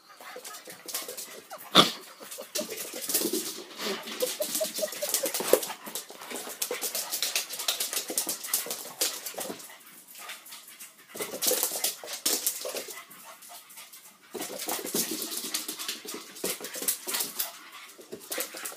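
A French bulldog puppy and an Old English sheepdog playing: scuffling, claws clicking on a tile floor, and short dog vocalisations in uneven bursts.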